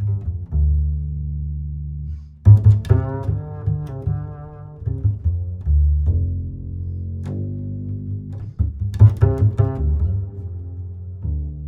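Background music led by low bowed and plucked strings, double bass and cello, playing sustained low notes with plucked accents.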